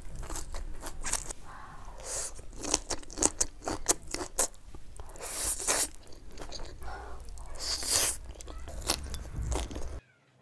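Close-up eating sounds: a person biting and chewing food with crunchy, wet clicks and bursts, cutting off abruptly near the end.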